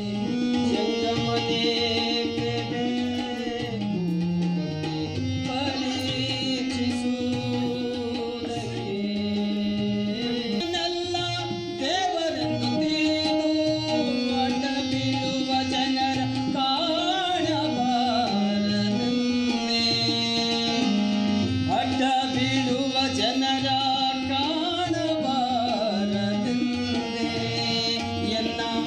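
A man singing a devotional song to harmonium and tabla: held harmonium notes step through the melody over a steady tabla rhythm, and the voice wavers up and down on longer phrases.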